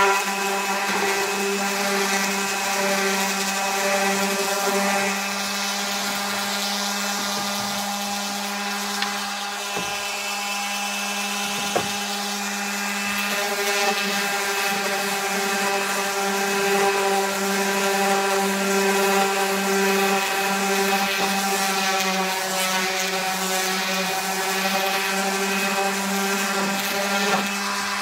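Electric random orbital sander running steadily against a pine board, a constant motor hum with the scratch of the pad on the wood, and a couple of light knocks around the middle.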